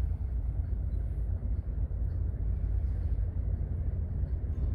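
Low, steady rumble of a large container ship passing close by.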